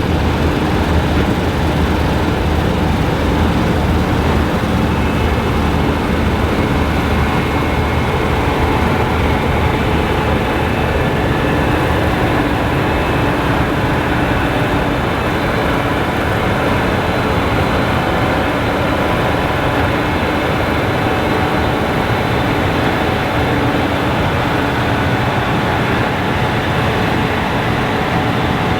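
Gleaner combine harvester running steadily while harvesting wheat: a loud, unbroken drone of engine and threshing machinery.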